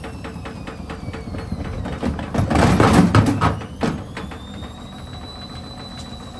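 Elin washing machine spinning: a motor whine falls in pitch and then climbs again after about four seconds, with about four to five knocks a second from the drum early on. A loud clattering burst comes about two and a half seconds in, followed by a single knock about a second later.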